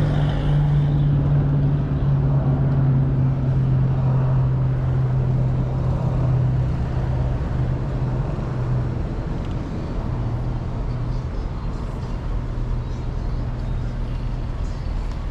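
Car engine running, a steady low hum under a constant rushing noise.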